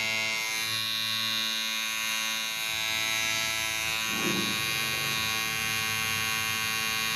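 Electric hair clipper running with a steady buzzing hum, with a brief rough change in the sound about four seconds in.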